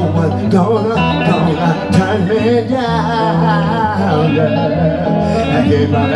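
Live acoustic blues: two acoustic guitars play a repeating bass figure while a man sings over them.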